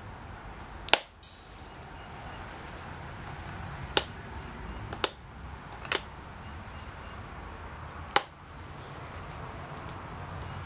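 Pressure flaking a Texas tab chert blade with a copper-tipped flaker: five sharp clicks as flakes snap off the edge, spaced one to three seconds apart.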